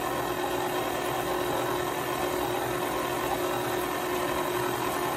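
KitchenAid tilt-head stand mixer running at a steady speed, its motor giving an even whine as the flat beater mashes boiled potatoes in the steel bowl.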